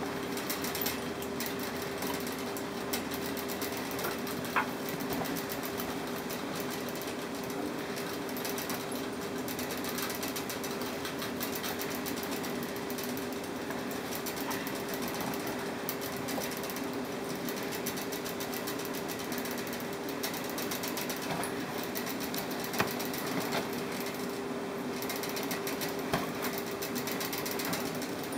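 A steady mechanical hum at an unchanging level, with a few faint clicks now and then.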